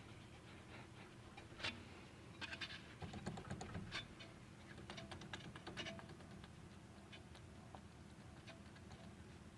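Light, irregular clicks and knocks from a worn steering tie rod end on a Mitsubishi Lancer 9, the sign of play in the joint. They come in scattered clusters, the sharpest knock about a second and a half in.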